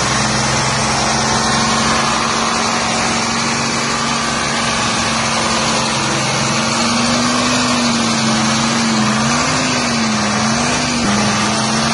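Three-cylinder Detroit Diesel engine of an American WBD85 pressure washer running steadily, with a steady hiss over it; its pitch wavers up and down in the second half and jumps back abruptly near the end.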